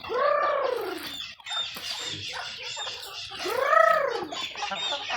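Backyard poultry calling: two loud drawn-out calls about a second long, each rising then falling in pitch, one at the start and a louder one about three and a half seconds in, over steady clucking and high chirping from the flock.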